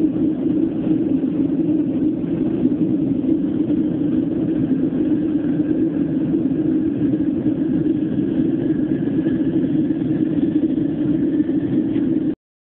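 Airliner cabin noise: the steady rumble of the jet engines and airflow heard from inside the cabin, with a faint thin whine joining about four seconds in. It cuts off abruptly near the end.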